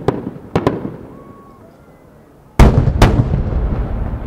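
Two 12-inch (300 mm) fireworks shells bursting with deep booms, under half a second apart, about two-thirds of the way in. Their senrin loads of many small sub-shells follow with a dense crackle and rumble. Two sharper bangs sound in the first second.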